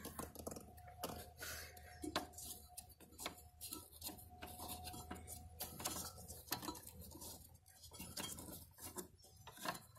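Faint scattered clicks and light metallic taps as a hand feels over the drive belt and pulleys under a Husqvarna AWD push mower's deck.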